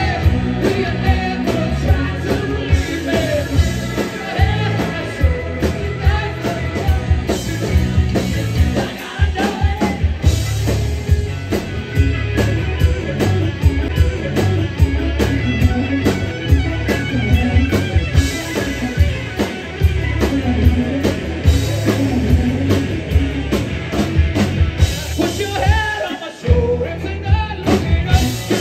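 Live rock band playing loudly: electric guitars, drum kit and a lead vocal, with a momentary break in the music near the end.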